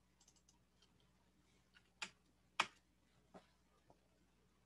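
A few sharp computer mouse clicks in a quiet room: two clear ones about two seconds in, half a second apart, then a couple of fainter ones.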